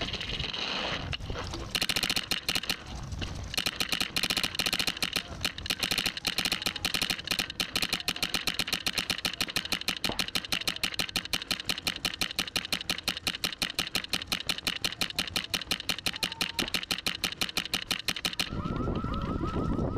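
Empire Axe electronic paintball marker firing in a rapid, evenly spaced stream of shots in ramping mode. The shots start about two seconds in, pause briefly, then run on steadily and stop near the end.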